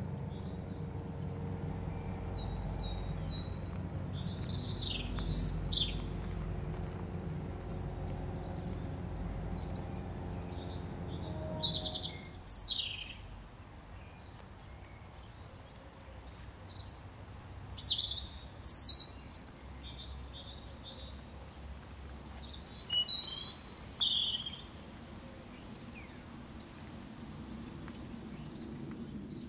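European robin singing short, high phrases of song, four of them a few seconds apart. A steady low hum sits underneath for the first twelve seconds or so, then fades.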